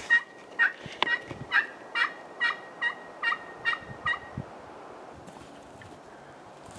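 A series of about ten turkey yelps, roughly two a second, lasting about four seconds and then stopping.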